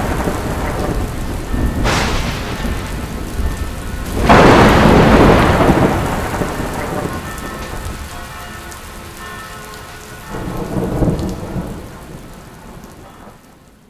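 Thunderstorm: rain falling steadily throughout, with a sharp thunderclap about two seconds in, then a loud rolling rumble of thunder about four seconds in that slowly dies away, and a softer rumble about ten seconds in. The sound fades out at the end.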